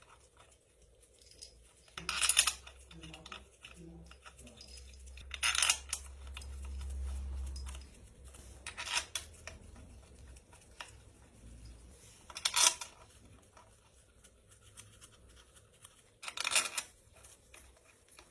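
Hand-tool work on an engine: five short bursts of noise about three to four seconds apart, with a low hum between about two and eight seconds in.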